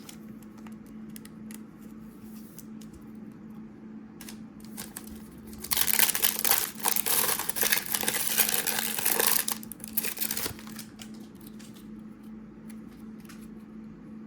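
Card handling with light clicks, then about five seconds of loud crinkling of plastic card packaging, over a steady low hum.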